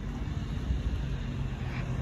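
A steady low engine hum, with an uneven low rumble of wind on the microphone.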